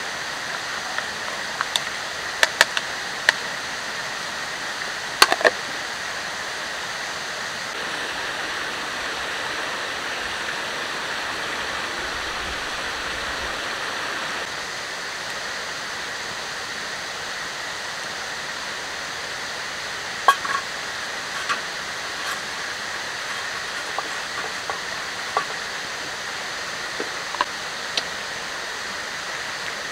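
Steady rush of a forest stream, with scattered sharp clicks and crackles, loudest about five seconds in.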